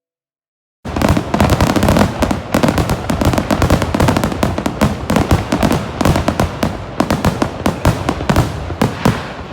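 Fireworks going off in a rapid, dense barrage of sharp cracks and bangs, many a second. It starts abruptly about a second in and dies away near the end.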